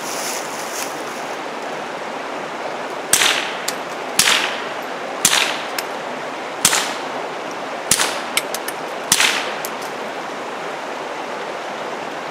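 Six suppressed shots from a Taurus TX22 .22 LR pistol with a fuel-filter suppressor, fired at uneven intervals about a second apart, most followed by a smaller sharp click, over a steady rushing background. The ammunition is not subsonic. The suppressor was working loose because it was not threaded fully on, which the shooter notices just after.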